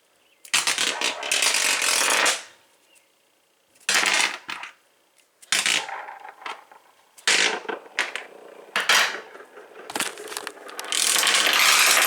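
Padlocks being spun on a surface one after another, each rattling and scraping in a short burst; about six bursts, the longest near the start and at the end.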